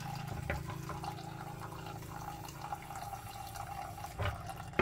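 Old gear oil trickling in a thin, steady stream from a car's rear differential into a drain container, over a steady low hum, with a couple of soft knocks.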